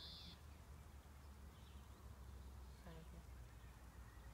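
Near silence: faint outdoor background with a low rumble and a brief high tone at the very start.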